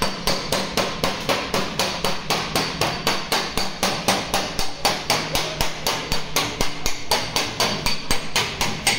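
Hammer blows on a flat steel bar held against a car body panel, a steady rapid train of sharp metallic strikes at about five a second.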